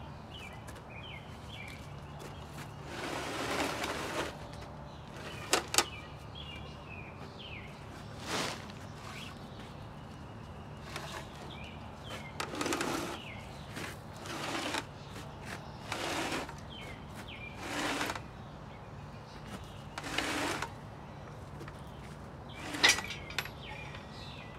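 A heavy wooden crate carrying an engine is dragged across gravel in a series of short scraping pulls, with a couple of sharp knocks. Birds chirp faintly in the background.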